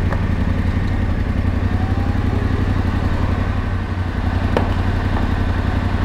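Yamaha Ténéré 700's parallel-twin engine idling steadily, heard close up from the bike.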